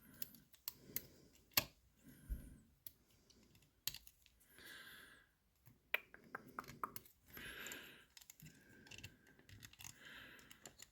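Quiet, scattered small clicks and light metallic taps of lock picks and a tensioner being handled in a lever safe lock, with two short scraping sounds, one near the middle and one a few seconds later.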